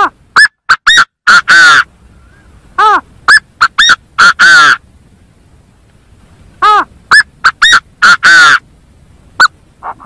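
Loud calls of the gà gô, a gamebird: phrases of five or six harsh, ringing notes, the last ones drawn out, repeated three times about three seconds apart, with one lone note near the end.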